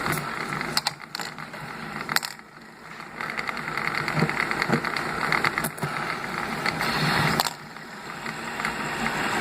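Fidget spinners' ball bearings whirring as they spin, with a few sharp clicks of handling.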